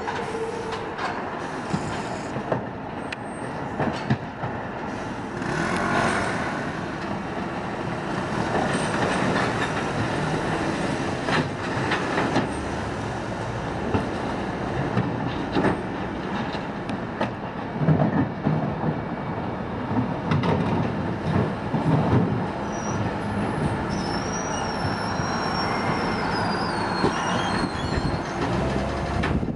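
Refuse collection lorry running at the kerb while its rear bin-lift raises and tips wheelie bins, with wheelie bins rolled over paving and repeated knocks and bangs throughout.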